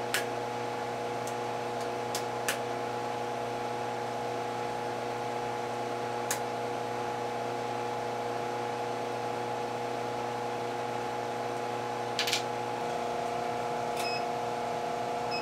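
Induction forge heater running with a steady hum of several fixed tones; one tone drops slightly about thirteen seconds in. A few sharp clicks sound through it, and about twelve seconds in a hammer is set down with a short clatter.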